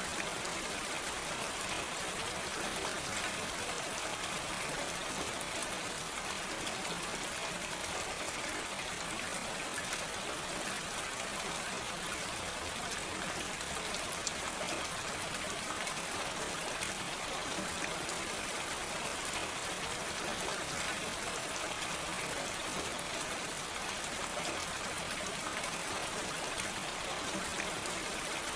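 Steady gentle rain with no thunder: an even hiss of falling rain, fine drops pattering on a surface.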